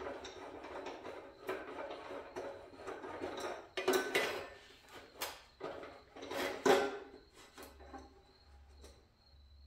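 Irregular metallic clinks and knocks of metal parts and tools being handled, loudest about four seconds in and again near seven seconds, thinning to faint ticks near the end.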